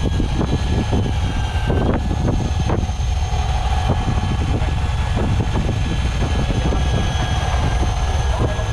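Motor boat's engine running steadily: a dense low rumble with faint steady high tones over it.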